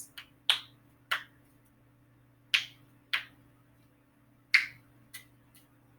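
Sharp snapping clicks, about seven in six seconds, unevenly spaced and some about half a second apart, over a faint steady hum.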